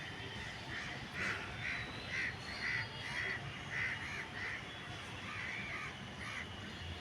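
Birds calling: a long run of short, repeated calls, about two a second, over a steady low background rumble.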